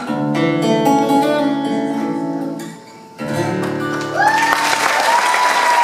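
Acoustic guitar picked to the close of a song: notes, a short near-pause, then a final ringing chord. About four seconds in, audience applause breaks out, with cheers over it.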